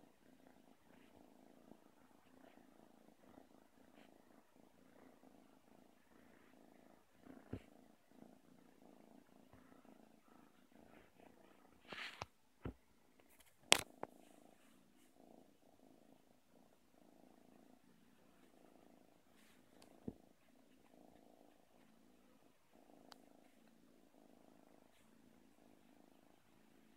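A white kitten purring quietly and steadily, a low pulsing purr. A few sharp clicks or knocks cut in, the loudest about halfway through.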